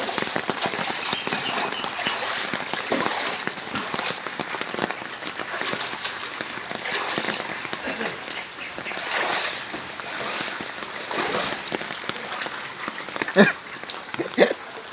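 Rain falling on flowing floodwater, with steady pattering and splashing of the moving water, and a brief louder sound near the end.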